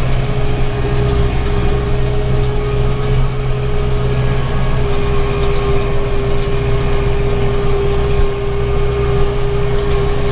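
Tractor engine running steadily under load, powering a round baler as it picks up hay and builds a bale, with a steady whine held over the low drone.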